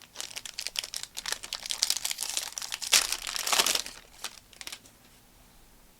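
A trading-card pack's wrapper crinkling and tearing as it is opened, for about five seconds, loudest about three seconds in, then stopping.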